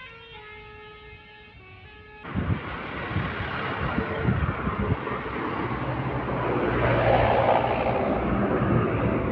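A Basuri telolet multi-tone bus horn playing a faint stepping melody. About two seconds in it gives way abruptly to a large bus passing close, its engine and road noise rising to a peak near the end.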